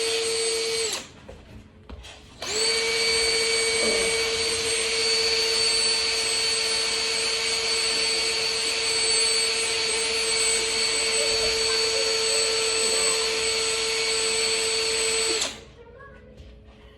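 Electric power drill running at a steady pitch. It stops briefly about a second in, then runs again for about thirteen seconds before cutting off.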